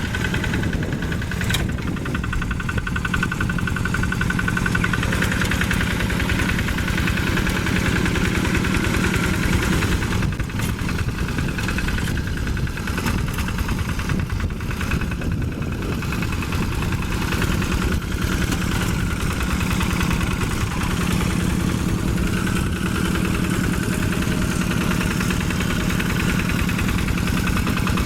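Single-cylinder Yanmar diesel engine of a Quick G1000 hand tractor running steadily with a rapid, even beat.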